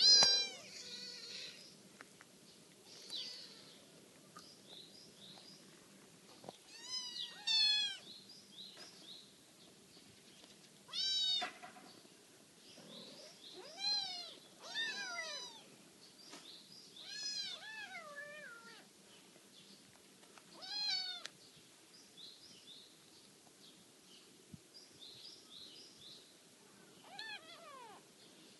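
Young kittens mewing: about nine high-pitched calls spread a few seconds apart, each falling in pitch.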